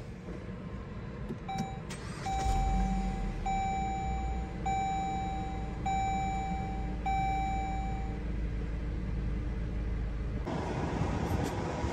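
A 2021 Dodge Journey SXT's 2.4-litre four-cylinder engine starts from the push button about two seconds in and settles to a steady idle. Over the idle, the dashboard warning chime sounds one short beep and then five long beeps. Near the end the sound changes to a louder, steady rush.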